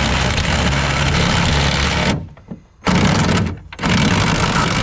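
Power drill cutting a drain plug hole through an aluminum jon boat hull, run in bursts: it stops about two seconds in, runs again briefly, pauses, and starts up once more near the end.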